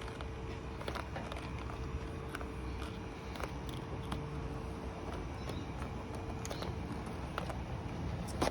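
Scattered light clicks and taps of hands working a rubber seal strip into place on double-sided tape, over a steady low hum with a faint constant tone.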